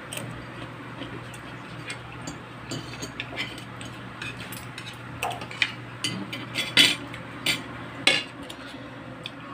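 Spoon and fork clinking and scraping on a plate while eating: scattered light clicks, with several sharper clinks in the second half.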